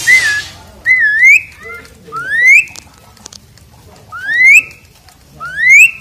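Asian pied starling (jalak suren) singing loudly: about five clear whistles spaced a second or two apart, most of them rising upslurs, one with a dip before the rise. A short hiss at the very start.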